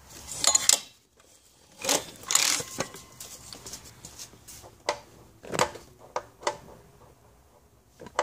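Hand-turning an Evinrude 40 HP outboard with the rebuilt lower unit in forward gear, checking that the propeller turns smoothly: two short rasping noises, then a few sharp clicks and knocks. The engine is not running.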